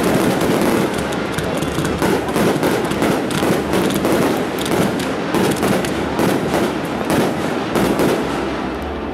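Fireworks finale: a dense, rapid barrage of aerial shell bursts, the bangs overlapping one on another with hardly a gap, easing off slightly near the end.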